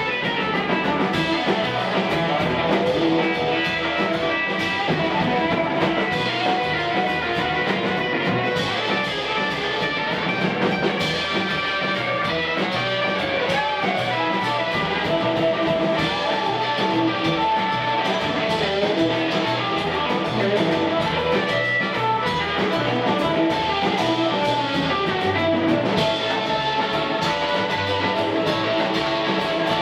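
Live blues band playing an instrumental stretch with no vocals: a cream semi-hollow electric guitar plays over drums and upright double bass.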